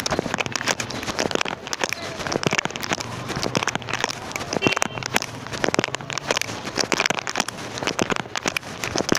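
Continuous dense, irregular crackling and clicking, like crunching or chewing, with no steady rhythm; the uploader takes it for something eating in the dark.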